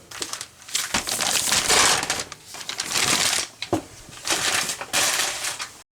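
Lean ground beef sizzling and crackling in hot olive oil in a frying pan, in three bursts about a second and a half long with quieter gaps between.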